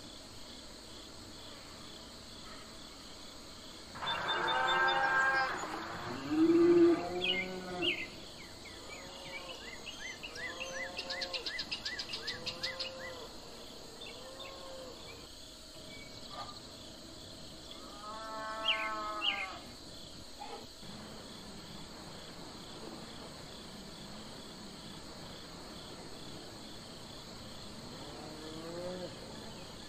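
Cattle mooing in a few rising-and-falling calls, loudest about four to eight seconds in and again shortly before the twenty-second mark, over a steady chirping of crickets.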